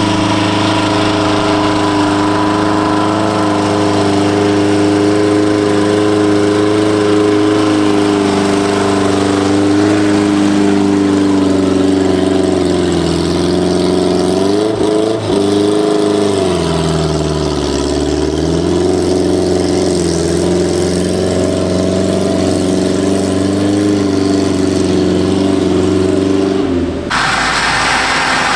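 1930 Austin 7 Sports' small four-cylinder side-valve engine running hard at steady revs as the car climbs a muddy trial section; about halfway through the revs sag under load and then pick back up. Near the end it gives way abruptly to a different, rougher engine sound.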